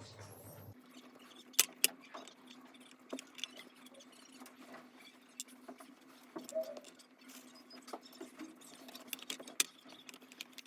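Small hard parts of a keyboard build, such as screws, standoffs and the plate, being handled against a wooden case: irregular light clicks and taps, with two sharper knocks about a second and a half in, over a faint steady hum.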